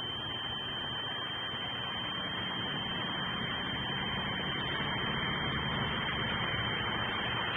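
Steady noise of road traffic through the nest camera's microphone, with a constant high-pitched electronic whine over it.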